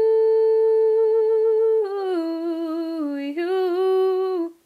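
A woman singing unaccompanied, holding a long steady note on "you", then running down in a melisma to a lower note and back up to a middle one, stopping just before the end.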